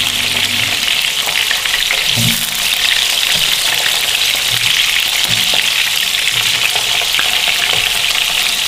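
Stuffed whole potatoes shallow-frying in hot oil in a nonstick frying pan: a steady sizzle. A silicone spatula turning them gives soft bumps now and then.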